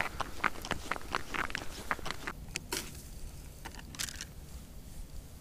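Quick footsteps crunching on ice, about three a second, stopping a little over two seconds in. A few separate crunches and knocks follow.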